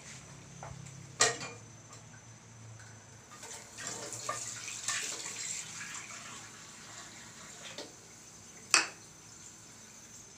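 Kitchen tap running briefly in the middle, with two sharp knocks of pots or dishes, the louder one near the end.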